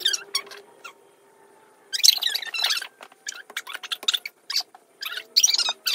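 Squeaking of a wet plastic lid and nitrile-gloved hands as the lid is pressed down hard onto a water-filled plastic vessel. The squeaks come in short bunches, about two seconds in and again near the end.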